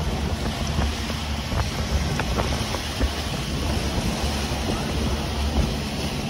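Sport-fishing boat's engine running steadily while underway, with wind buffeting the microphone and the wake rushing past the stern.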